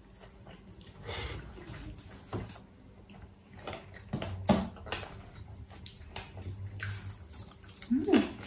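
Cooked shrimp peeled by hand: wet crackling and squishing of the shells, with scattered small clicks and a sharper click about four and a half seconds in. Eating mouth sounds join near the end.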